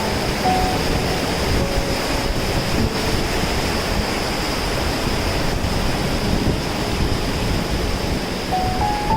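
Waterfall pouring, a loud, steady rushing roar of falling water. A steady high-pitched tone runs above it throughout.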